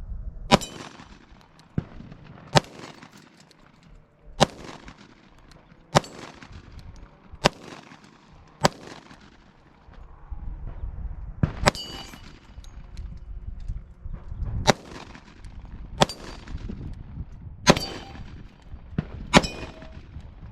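Sig Sauer P320 X-TEN 10mm pistol firing about a dozen single shots at a slow, uneven pace, one to two seconds apart. Some hits ring off steel targets.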